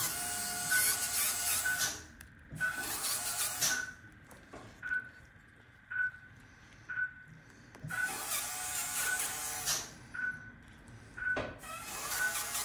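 Slow-speed dental handpiece with a polishing prophy angle running in short bursts of a second or two, four times, with pauses, as the dog's teeth are polished smooth. A short beep sounds about once a second behind it.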